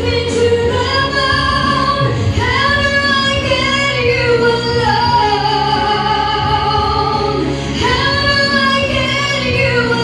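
A woman singing into a microphone, holding long notes in a slow vocal line.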